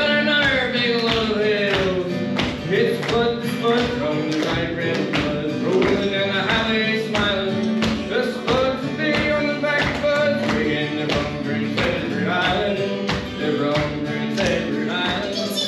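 Country-style music with singing over a steady beat.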